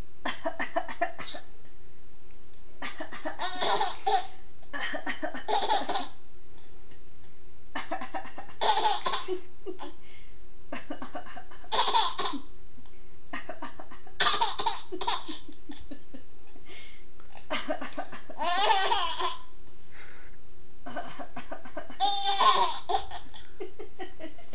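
A woman coughing and a small child laughing in response, in about eight short bouts a few seconds apart, over a faint steady hum.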